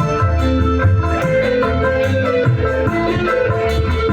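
Dangdut band playing an instrumental passage between sung lines, led by a guitar melody over bass.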